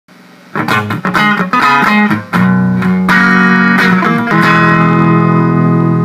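Electric guitar with distortion, played through a ProCo RAT pedal that has had its footswitch repaired: a few picked chords starting about half a second in, then a last chord held and left ringing.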